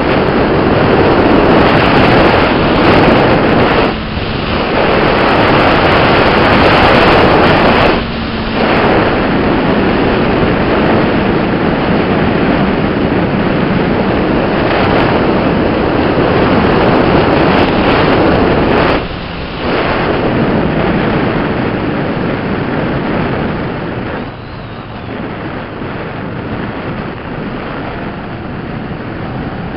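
Heavy wind noise on a helmet-mounted camera's microphone from riding a motorcycle at speed. It is steady and loud, eases off briefly three times, and is somewhat lower for the last few seconds.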